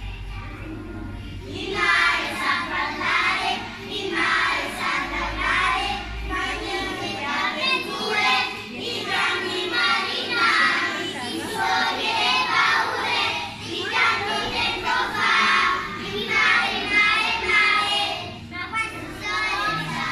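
A group of young children singing a song together, starting about a second and a half in and going on in phrases.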